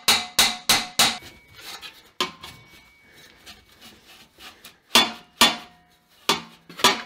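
Steel exhaust pipe section clanking and ringing as it is knocked and worked loose from its slip joint under a car: a quick run of sharp metallic knocks at the start, a quieter stretch of scraping, then more clanks near the end as the pipe is pulled free.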